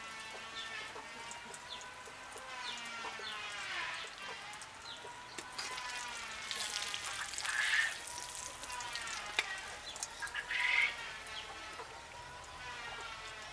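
Hot oil sizzling and crackling as quail pieces deep-fry in a wok, with sharp pops scattered through. A wavering pitched sound comes and goes over it every second or two.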